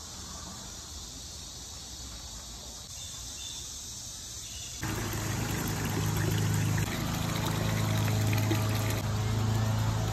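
Quiet outdoor background, then about halfway through a sudden switch to a small garden fountain. Water trickles and splashes from a log-shaped fountain into its basin, over the steady low hum of the fountain's pump.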